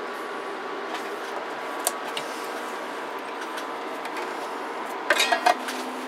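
Steady hum and hiss from running bench electronics, with faint steady tones. About five seconds in comes a quick cluster of clicks and rattles as the CB radio and its coiled mic cord are picked up and handled.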